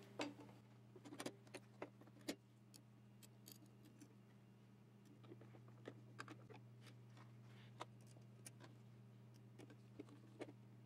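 Faint, scattered clicks and light metal clinks as a sewing machine's metal needle throat plate is set back in place and a screwdriver is fitted to its retaining screw, over a steady low hum.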